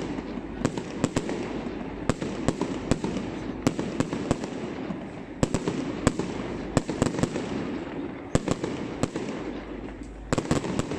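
Fireworks going off: sharp bangs at irregular intervals, some in quick clusters of two or three, over a steady background din.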